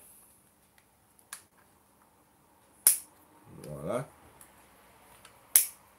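Cutters snipping the excess legs of a freshly installed coil's wire on a rebuildable dripping atomizer deck: a faint click, then two sharp snips about three seconds apart, the second the loudest.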